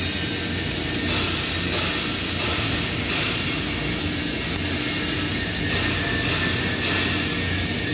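Stick-welding arc crackling and hissing steadily as an electrode burns along a steel joint, over a steady low hum.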